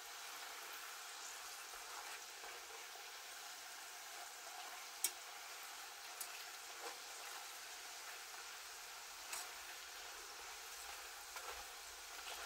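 Plantain slices deep-frying in hot oil, a steady sizzle. A few short clicks of a metal carving fork against the enamel pot as the slices are moved about; the sharpest comes about five seconds in.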